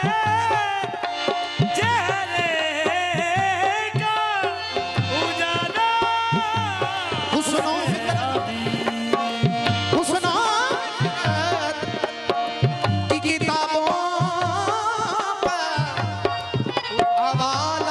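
Live qawwali: harmonium and tabla accompany singers whose voices glide through long, ornamented lines over a steady drum beat.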